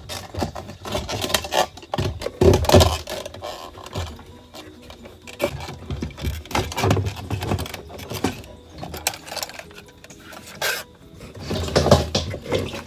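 Plastic fuel filter assembly being worked up and out of the fuel tank opening by hand: irregular scraping and rubbing of plastic against the tank's mounting ring, with scattered knocks, loudest about two and a half seconds in.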